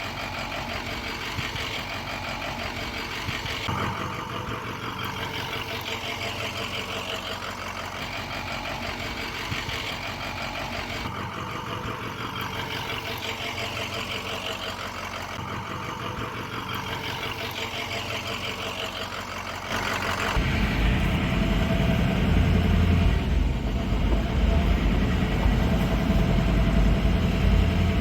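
A vehicle engine running steadily, turning louder and deeper about twenty seconds in.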